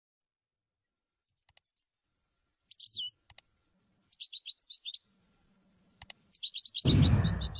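Small songbird twittering in short, quick high phrases, with a few sharp clicks between them. A loud burst of rushing noise starts near the end.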